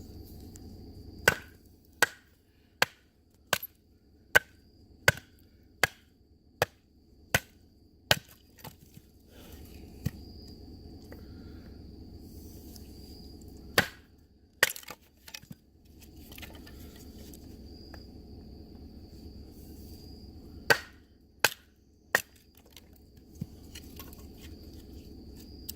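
A handmade fixed-blade knife being batoned through a piece of firewood to split it down the centre, its spine struck with a baton. There is a run of about ten sharp knocks, evenly spaced under a second apart, then after a pause two more strikes and later three.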